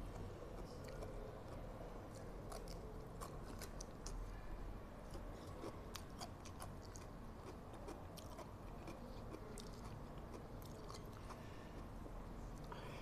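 Close-miked chewing of raw cabbage and instant fried noodles: a steady run of crisp, irregular crunches.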